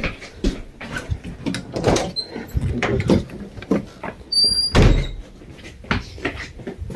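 Footsteps going down stairs, with the handheld phone rubbing and bumping against clothing: a run of irregular knocks, and a heavier thump about five seconds in.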